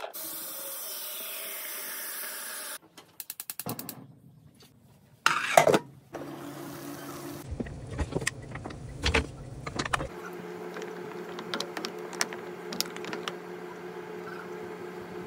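Wooden spoons knocking against a steel pot of boiling water, with scattered clicks and knocks and one louder clatter about five seconds in. A steady hum runs underneath, and the sound changes abruptly several times.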